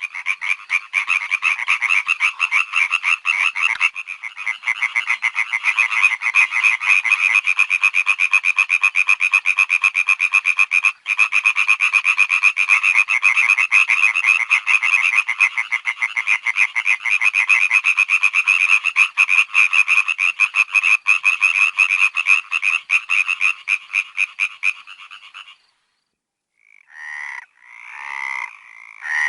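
Chorus of frogs calling in fast, dense pulsing trills, which stops abruptly at about 25 seconds. After a brief silence, a few separate croaks follow, each under a second apart.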